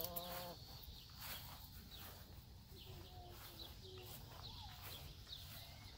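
Faint outdoor background: small birds chirping now and then over a steady low rumble, with a brief pitched call right at the start.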